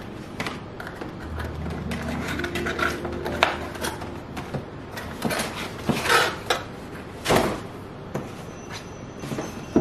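Cardboard packaging being handled: rustling and scraping with several sharp knocks as a ribbon-tied gift box is lifted out of a cardboard shipping box and put down on a table.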